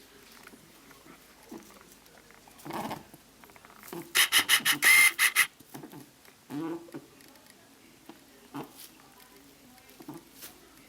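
Domestic rabbit grunting: soft snuffling sounds, then a quick run of about seven loud, short grunts about four seconds in.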